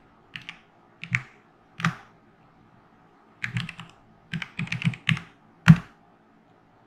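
Computer keyboard typing: a few separate keystrokes, then a quicker run of keys, and a last, loudest key press near the end that enters the command after a sudo password is typed.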